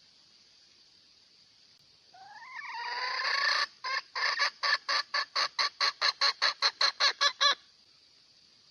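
Junglefowl hen calling a rooster: a rising, drawn-out call about two seconds in, then a fast run of short clucks, about four a second, that stops about a second before the end.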